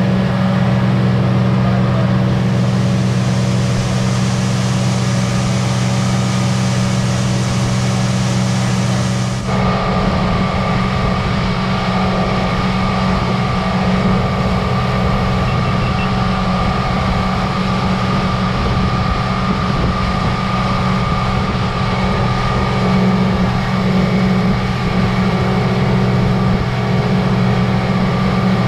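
Fishing boat's engine running steadily, a loud even drone, with a high hiss over it that cuts off abruptly about nine seconds in.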